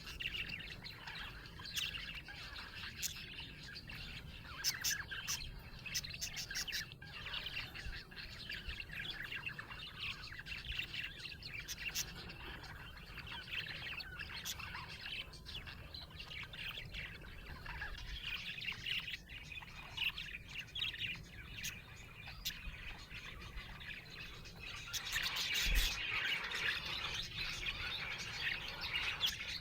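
Budgerigars chirping and chattering without pause, busiest and loudest about 25 seconds in.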